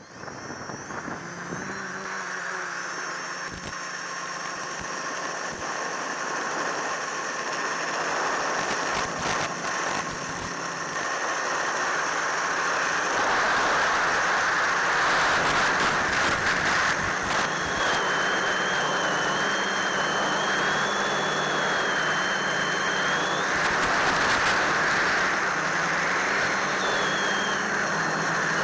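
The electric motor of a radio-controlled model running under throttle, picked up by its onboard camera. It comes in as a steady noisy whirr that grows louder over the first dozen seconds and then holds, with thin high whines above it, one of them wavering in pitch in the second half.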